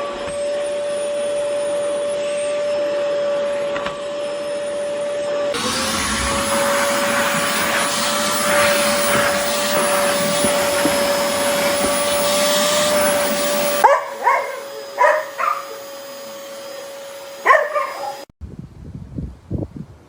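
Oreck Commercial XL Pro 5 bagged canister vacuum running with a steady high whine over a rushing air sound, which grows louder and fuller about five seconds in. Some fourteen seconds in the rushing drops away, a dog barks a few short times, and the motor's whine stops about eighteen seconds in.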